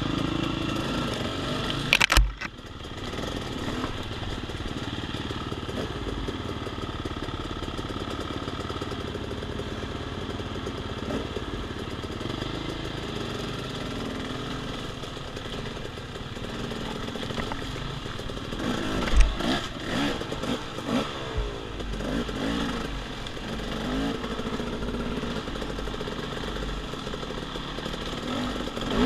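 Dirt bike engine running at low, fairly steady revs. A sharp knock comes about two seconds in, and a cluster of clattering knocks about two-thirds of the way through.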